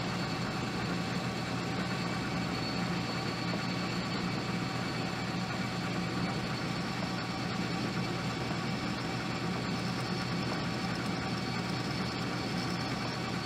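Small metal lathe running at a steady speed with its chuck spinning: an even motor and gear hum with a faint high whine.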